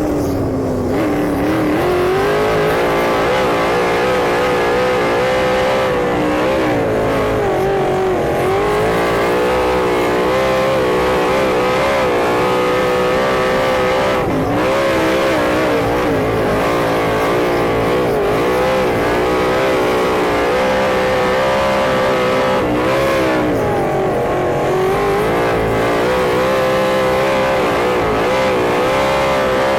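Sprint car engine racing under load, its pitch rising and dipping again and again as the throttle is worked.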